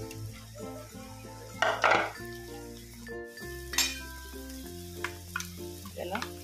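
Fried soya chunks being stirred into masala in a metal pan with a flat metal spatula: scrapes and clinks against the pan with a light sizzle, the loudest strokes about two seconds in and near four seconds. Soft background music with held notes runs underneath.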